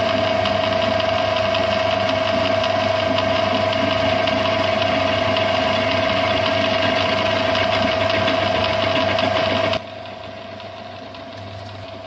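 Metal lathe running while a ball turning attachment's cutter takes a cut on a spinning metal bar, turning it into a sphere: a steady whine over a low hum, with cutting noise. About ten seconds in the sound drops sharply to a much quieter lathe hum.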